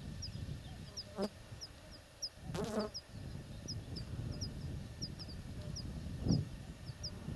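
A bird's short high call repeating about three times a second, with a single louder honking call about two and a half seconds in, over a low wind rumble.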